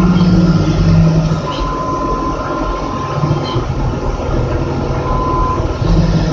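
Crane engine running under load, its pitch dropping about a second and a half in and revving up again near the end, with a high warning beep from the crane's cab alarm sounding twice.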